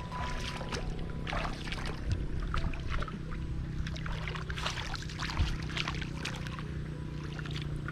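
Water splashing and sloshing in irregular splashes, over a steady low hum.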